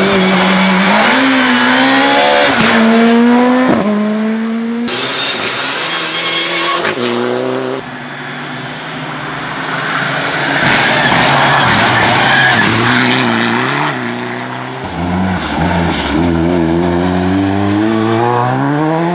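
Rally car engines at full throttle in several short clips cut one after another. The pitch climbs and drops sharply again and again as the cars change gear.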